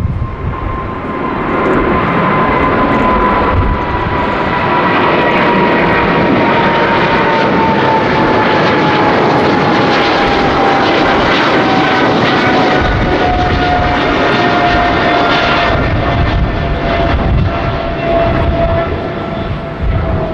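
Boeing 777-300ER's GE90-115B jet engines at takeoff power, a loud steady rush of engine noise with a whining tone that falls slowly in pitch throughout. The sound swells about a second in and again a few seconds later, then holds.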